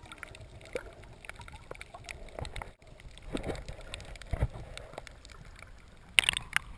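Muffled water sound heard underwater: faint gurgling with scattered small knocks, then a splash and sloshing as the camera breaks the surface about six seconds in.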